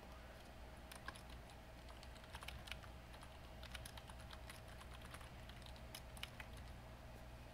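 Faint typing on a computer keyboard: irregular, quick key clicks coming in short runs.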